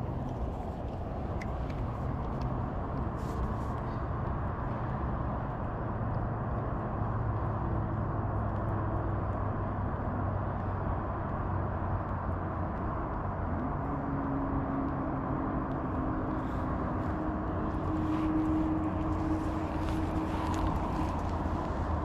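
Steady low rumble of distant motor traffic. A faint engine drone comes up about halfway through.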